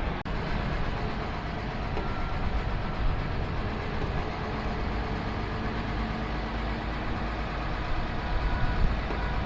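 A 2007 Dodge Ram 3500 pickup with a turbo Cummins diesel on the move: steady engine and road rumble.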